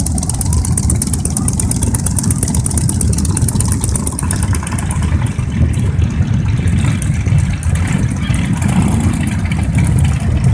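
A procession of cruiser motorcycles riding past one after another, their engines running with a steady low rumble.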